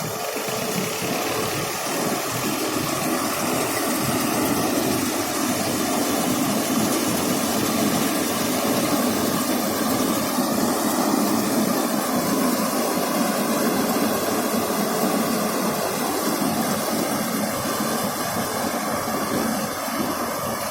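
Hira 785 combine harvester's engine and machinery running steadily, a continuous mechanical drone that grows a little louder over the first few seconds.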